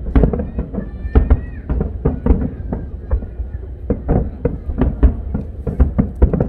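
Aerial fireworks bursting in quick succession: many sharp bangs over deep booms, with a brief high tone about a second in.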